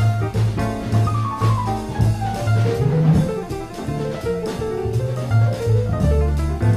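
Background instrumental jazz music with a bass line, drum kit and a steady beat.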